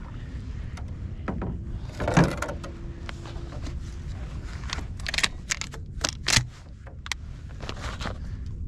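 Shotgun and paddle being handled in a fiberglass pirogue as the gun is raised to shoot: a knock about two seconds in, then a cluster of sharp clicks about five to six seconds in, over a low steady rumble.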